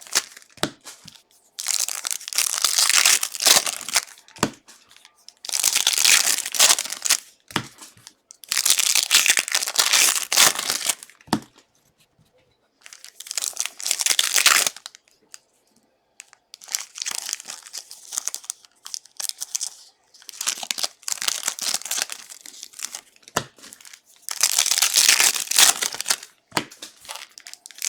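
Foil trading-card pack wrappers being torn open and crinkled by hand, in about seven separate stretches of ripping and crackling with short pauses between.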